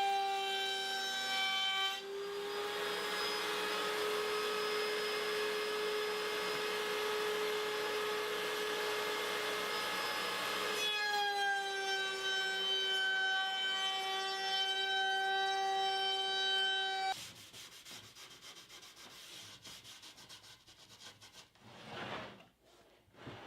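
A woodworking power machine running with a steady whine while a maple board is fed through it. A loud cutting noise lasts about nine seconds, then the machine runs free again until it stops suddenly. Faint rubbing and scraping on wood follows.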